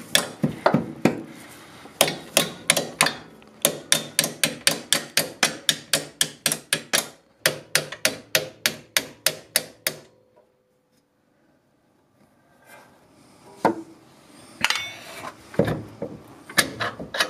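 Hand ratchet wrench clicking steadily, about four clicks a second, as a rear suspension arm bolt is undone. The clicking stops about ten seconds in, and a few separate metallic clinks follow near the end.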